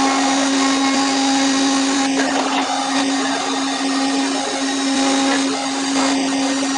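Five-axis CNC machining center milling a metal workpiece: the spindle and end mill run with a steady, loud hum under a dense cutting hiss.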